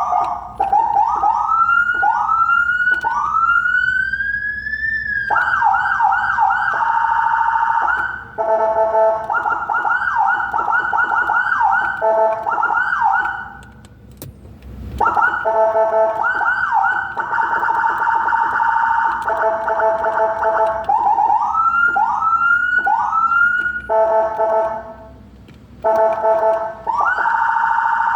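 Whelen HHS Lite siren chip sounding its tones through a car horn. It cycles through rising whoops, fast repeating yelps and warbles, and held tones, with brief breaks about 14 and 25 seconds in.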